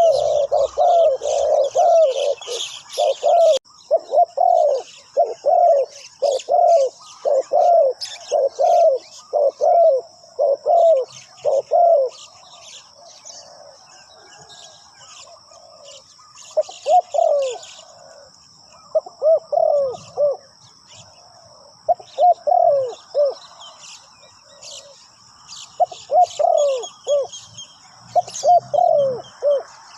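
Spotted doves cooing: low, hoarse, repeated coo notes in quick runs, dense through the first twelve seconds, then in shorter groups after a pause. Smaller birds chirp in the background over a thin, steady high tone.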